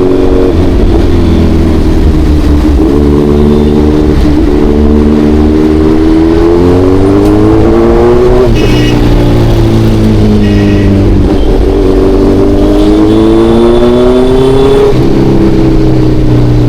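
Kawasaki Ninja 1100SX inline-four engine pulling hard under acceleration, its pitch climbing steadily. It drops suddenly at an upshift about halfway through, then climbs again to a second upshift near the end.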